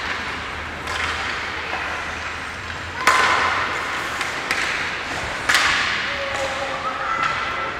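Ice hockey stick-and-puck impacts: sharp cracks of sticks striking the puck and the puck hitting the boards, each echoing briefly in the arena. The two loudest come about three and five and a half seconds in.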